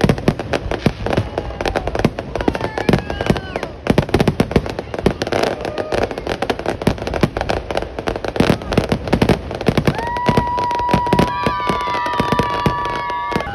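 Fireworks display: a dense barrage of bangs and crackling from many aerial shells bursting in quick succession. About ten seconds in, several long steady tones join the bangs and hold until near the end.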